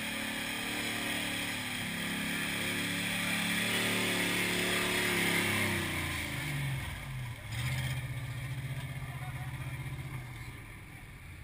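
Modified 4x4 mud truck's engine revving as it drives through a water-filled mud pit, its pitch climbing over the first five seconds. It then drops and runs at steady lower revs with a pulsing note until near the end.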